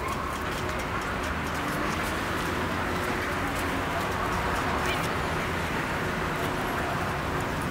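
City street ambience: steady traffic noise under the indistinct chatter of a crowd of passers-by.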